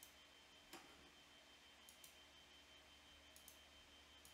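Near silence: quiet room tone with a few faint, sharp clicks.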